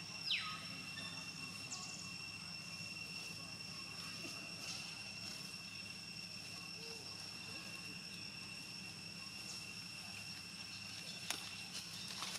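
Steady, high-pitched insect drone from crickets or cicadas, holding one even pitch throughout, with a brief falling call just after the start and a sharp click near the end.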